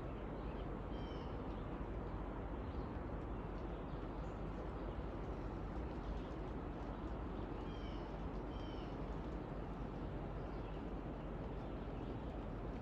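Bird calling with a few short chirps: one about a second in, then two more close together about eight seconds in, over a steady rushing background noise.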